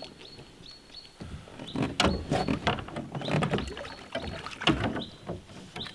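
Irregular knocks, clatters and rustles of a landing net and a freshly netted fish being handled against the side of a rowboat, the sharpest knocks about 2 seconds in and again near the end. A short, thin, high chirp repeats every second or so behind it.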